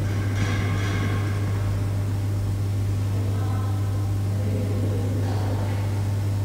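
A steady low hum, with a few faint, short pitched sounds over it about half a second in and again near the end.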